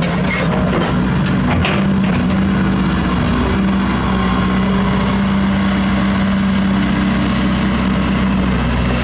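Diesel engine of heavy construction machinery running steadily with a constant hum, with a few short knocks in the first two seconds.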